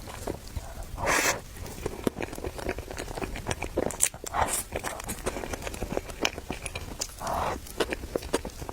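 Close-miked eating: irregular wet clicks of chewing and biting, with two louder, longer noisy sounds, one about a second in and one near the end.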